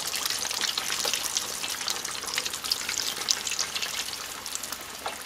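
Corn-masa cheese empanadas deep-frying in a pot of hot oil: a steady sizzle full of tiny crackling pops, easing slightly near the end.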